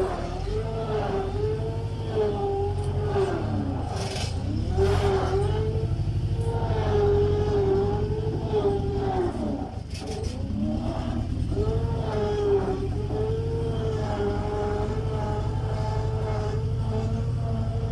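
New Holland skid steer loader running under load, its engine rumbling with a whine that rises and falls as it drives and works the loaded bucket. A couple of short knocks break in, about four seconds in and near ten seconds.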